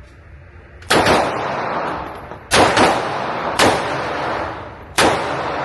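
Five gunshots fired at an uneven pace, two of them in quick succession, each followed by a long echo.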